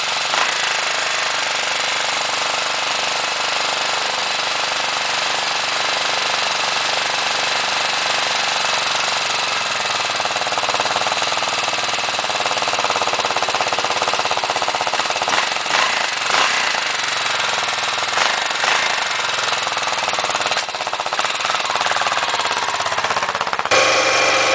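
A 1980 Yamaha XT500's 499 cc air-cooled single-cylinder four-stroke engine idling with a fast, steady thump, still on choke just after a cold start from two years' storage. It is revved briefly a few times in the middle, and just before the end the sound changes abruptly to a louder run.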